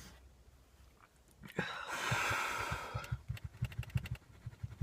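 A man, overheated and struggling in a hot car, lets out a long heavy sigh about a second and a half in. Faint, irregular low knocks follow.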